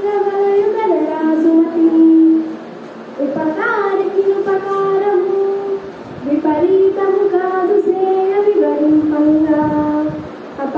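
A high solo voice singing a Telugu padyam (verse) in a slow chanting melody, holding long notes. It sings three phrases, with short breaths at about a quarter of the way in and again near the middle.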